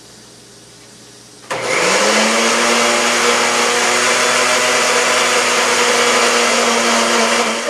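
Blender motor switched on, quickly rising in pitch to a steady speed and running loudly as it purées parsley, oil, vinegar and water into a sauce, then switched off near the end.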